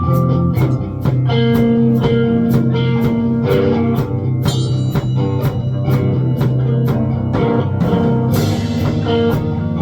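Rock music from a band: guitar over a steady drum-kit beat.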